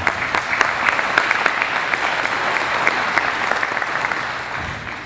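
Audience applauding, a dense patter of many hands clapping that fades away over the last second.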